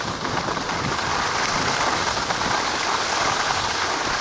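Skis sliding over packed snow, a steady hiss.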